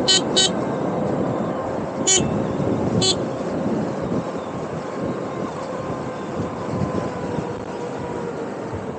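Handheld electric horn giving short high-pitched beeps: two quick ones at the start, then one about two seconds in and another a second later.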